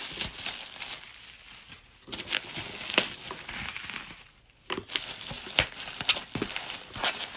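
Parcel packaging crinkling and crackling as it is handled and opened, in irregular bursts with sharp little clicks and a brief lull a little past halfway.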